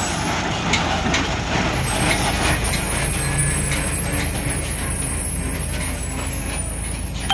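Heavy truck engine running with a steady low rumble, with a run of short sharp noises over the first couple of seconds.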